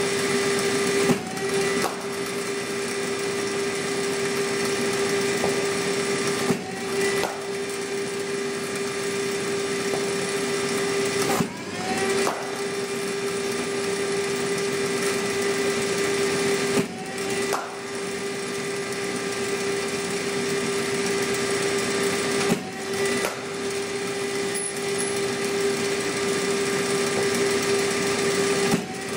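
Cricket bowling machine's spinning wheels running with a steady whine. About every five and a half seconds the whine dips as a ball is fired, with a sharp knock, and then rises back as the wheels spin up again.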